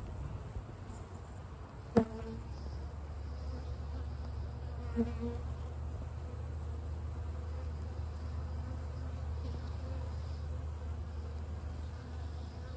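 Honeybees in an opened hive humming in a steady low drone. A single sharp click sounds about two seconds in.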